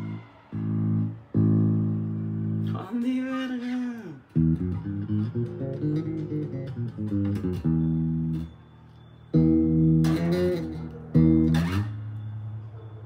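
Electric bass guitar plucked through a Fender Rumble 25 bass amp: single sustained notes one after another, with a couple of notes sliding up and down in pitch.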